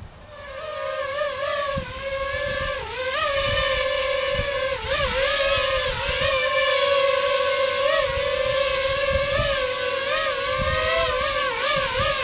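DJI FPV quadcopter drone's propellers and motors whining. The sound rises in level over the first two seconds and then holds steady, its pitch wavering up and down as the throttle changes.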